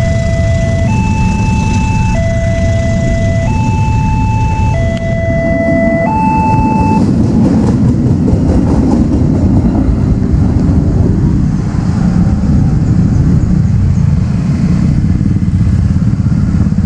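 Railway level-crossing electronic warning alarm alternating between two tones, each held a little over a second, which stops about seven seconds in. Under it is the steady rumble of passenger coaches rolling past the crossing, followed by motorcycle engines as traffic moves off near the end.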